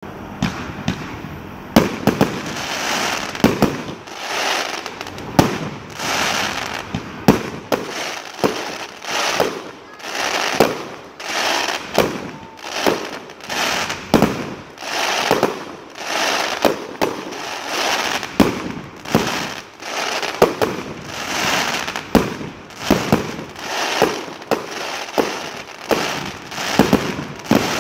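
Fireworks display: aerial shells firing and bursting in quick succession, many sharp bangs with a hiss that swells and fades between them about every second and a half.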